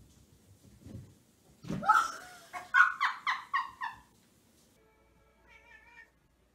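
A person lets out a rising squeal, then laughs in a quick run of about six short bursts that stops about four seconds in.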